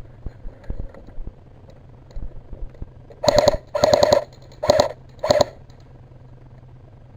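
Airsoft electric gun firing four short bursts of automatic fire, each a rapid rattle of shots, about three seconds in, with a few lighter knocks before them.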